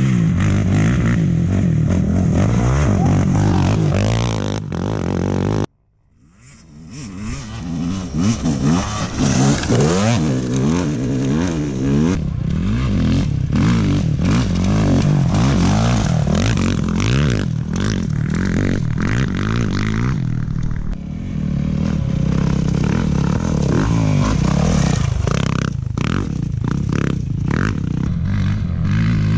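Off-road race motorcycle and quad engines revving hard as they pass, their pitch repeatedly rising and falling, with scraping and clattering from the terrain. The sound cuts out abruptly about six seconds in and swells back up.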